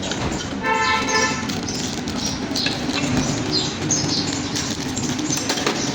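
Small birds chirping over and over in short, quick, falling chirps, over a steady background hum. A brief tone sounds just under a second in.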